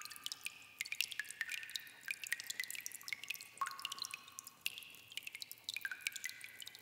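Water dripping: fast, irregular drops, several a second, many of them ending in a short ringing plink.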